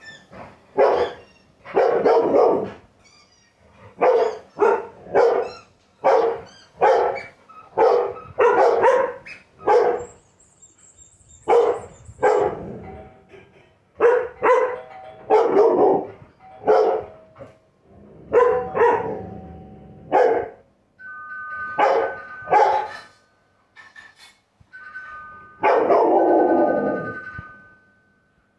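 Dogs barking in repeated short bouts. A high squeak sounds about ten seconds in, and a two-tone doorbell chimes twice in the last several seconds.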